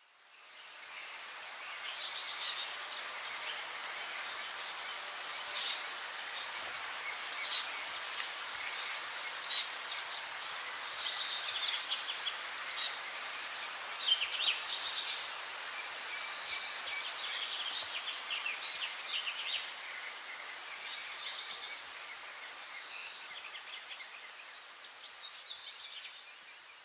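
Birdsong ambience: songbirds chirping and trilling in short high calls every second or two over a steady hiss, fading in at the start and fading out near the end.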